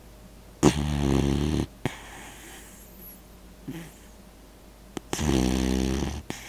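A pet snoring: two loud snores, each about a second long and some four seconds apart.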